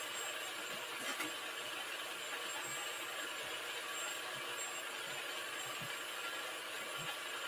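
Food processor motor running steadily with an even whirring hum, chopping a thick vegetable and sea-moss mix that it is not breaking down the way the cook wants.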